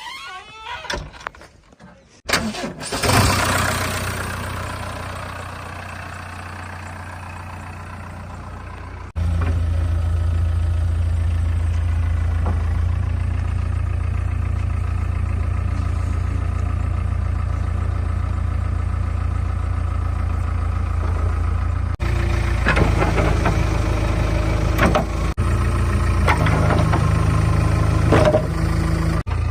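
Diesel engine of the tractor or backhoe loader starting about two seconds in, then running steadily at a low idle, with abrupt jumps in level several times.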